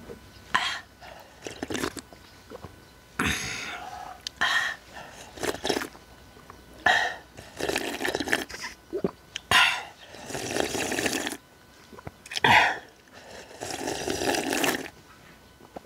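A woman drinking noodle-soup broth straight from a stainless steel bowl held to her lips, close to the microphone: a series of sips and swallows, some drawn out for a second or two, with short pauses between them.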